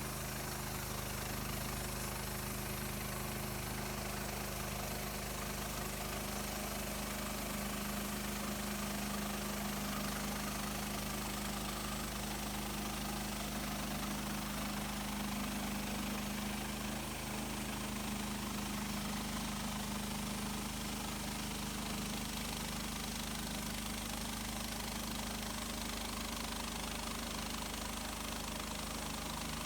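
Small gasoline engine of an HM130 Max portable bandsaw sawmill running at a steady speed, with an even, unchanging hum.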